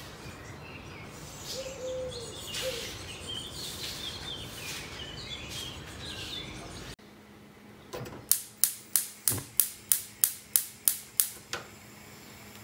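Birds chirping over steady outdoor background noise. Then, after an abrupt change in the sound, comes a quick run of about a dozen sharp knocks, about three a second.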